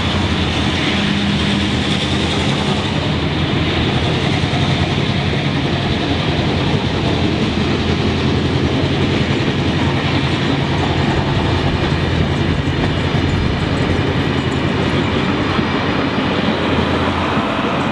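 A rake of heritage passenger coaches rolls past across a concrete rail bridge: a loud, steady rumble and clatter of steel wheels on the rails, with a steady low drone underneath.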